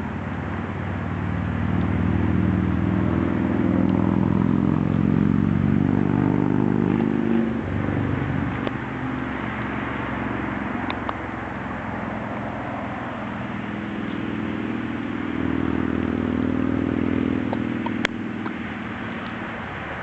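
A motor vehicle engine humming, swelling twice as if passing, with a few faint sharp clicks.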